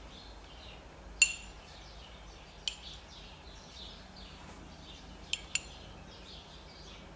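Metal spoon clinking against a drinking glass and plate as a garlic-and-parsley oil dressing is spooned out: four sharp clinks, the loudest about a second in, another near three seconds, and two close together past five seconds. Small birds chirp faintly in the background.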